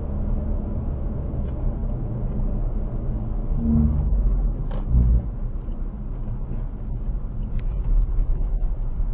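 Low road and engine rumble inside a Ford Focus RS Mk3 as it slows down from highway speed, with a couple of brief heavier thumps around four and five seconds in.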